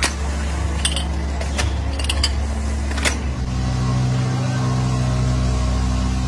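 Workshop machine running with a steady hum, with a few sharp metallic clicks in the first three seconds; about three and a half seconds in, the hum changes to a new, higher steady tone.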